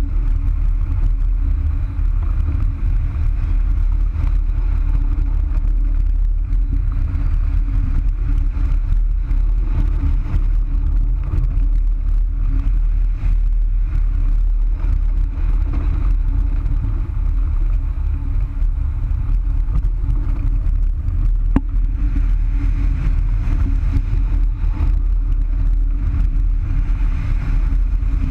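Wind rushing over the microphone of a wing-mounted camera on a hang glider in flight: a steady, loud low rumble. A single sharp click sounds about twenty-one seconds in.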